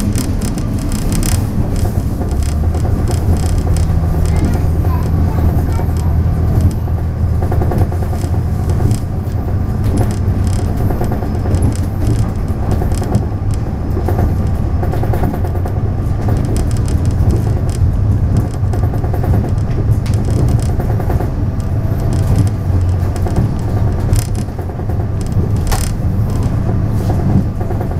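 Taiwan Railways DR3000-series diesel multiple unit running along the line: a steady low diesel drone with occasional clicks and rattles from the track.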